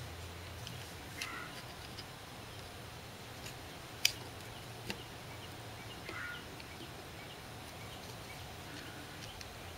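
Light metal clicks and taps of a small slide caliper being closed on and handled with an expanded bullet, with one sharp click about four seconds in, over a low steady hum.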